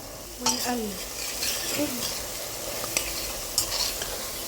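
Chopped onion with spices frying in ghee and oil, sizzling steadily while a spoon stirs and scrapes through it, with a couple of sharp knocks of the spoon against the pan late on.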